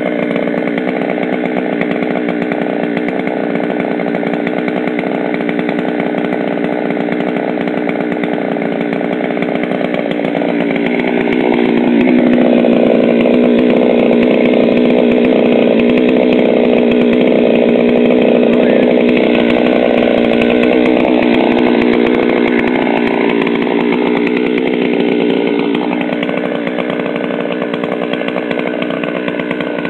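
Gas chainsaw running steadily, getting louder about twelve seconds in and easing off again near the end.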